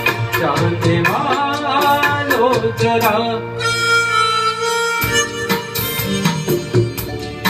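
A man singing a Hindi song into a microphone over keyboard backing music with a steady drum and tabla beat. About three and a half seconds in the voice stops and a held, harmonica-like melody takes over; the beat drops out briefly, then returns about five seconds in.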